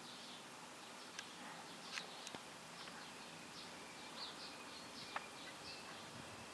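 Faint distant birds chirping: short high chirps scattered throughout, with a few light clicks, the sharpest about five seconds in.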